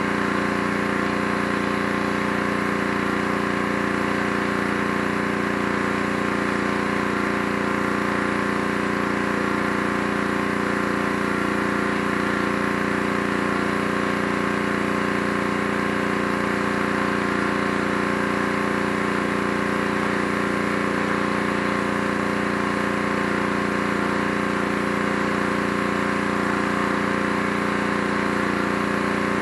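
Gas-engine pressure washer running at a steady, unchanging pitch while its wand sprays water onto the wooden deck boards.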